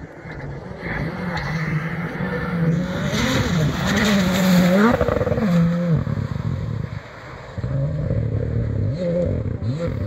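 Rally car engine revving hard on a gravel stage, its pitch climbing and dropping again and again with gear changes and throttle. Loudest about halfway through, it backs off briefly about seven seconds in, then picks up again with quick rising revs as the car slides into a corner.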